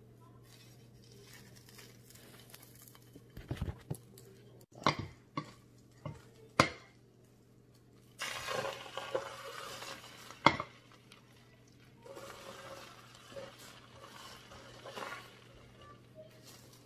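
A metal spoon clinking and knocking against a griddle, several sharp clicks, while beaten egg is spread on the hot griddle, with two stretches of sizzling hiss in the second half.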